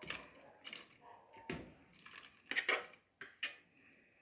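Kitchen utensils knocking and scraping against a cooking pot: a run of short, light clinks and knocks spaced irregularly, as chopped tripe is added to the pot.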